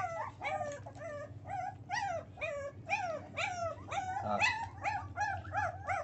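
Several young pit bull puppies whimpering and crying in short, high calls that fall in pitch, two or three a second and overlapping.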